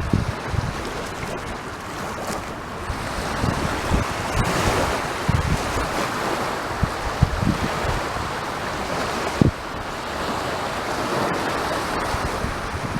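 Sea surf washing and breaking on a beach, a steady rush that swells about four seconds in. Wind buffets the microphone in short low thumps throughout, one sharp one about two-thirds of the way through.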